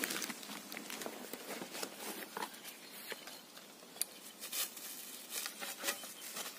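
Rustling and crinkling of plastic wrapping and the fabric carry bag as a packed PVC inflatable boat is handled. Later come scattered light clicks and knocks as the boat's collapsible oars are taken out and handled.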